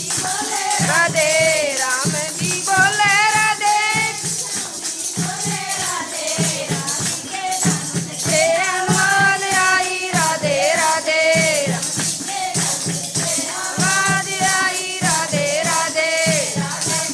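A Haryanvi bhajan being sung, the voice sliding and wavering through melodic phrases, over a steady drum beat and jingling rattle or tambourine-style percussion.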